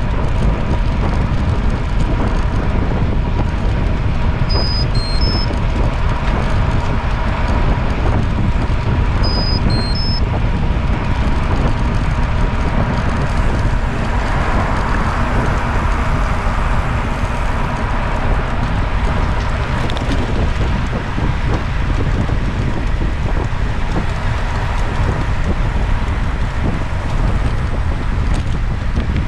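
Steady wind rushing over the microphone, with road noise from moving along a road and a faint steady tone underneath. Two short three-note electronic beeps sound about five and ten seconds in.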